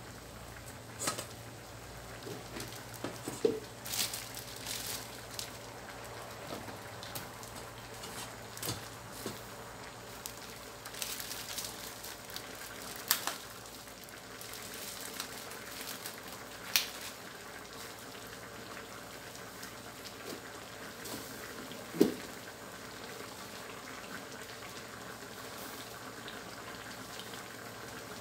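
Chicken coconut-milk curry boiling in a steel wok, a steady bubbling with scattered sharp pops and spits at irregular intervals. The sharpest pop comes about three-quarters of the way through.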